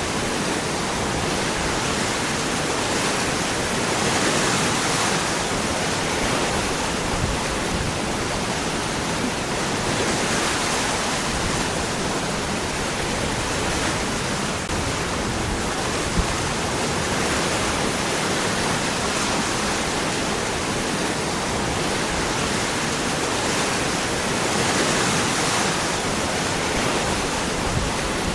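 Waterfall pouring over rocks: a steady, even rush of falling water that swells slightly now and then.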